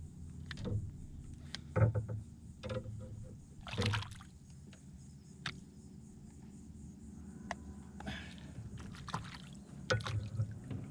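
Water splashing and dribbling against the side of a small boat as a caught fish is held at the surface and let go, with scattered sharp knocks and splashes, the loudest about two seconds in.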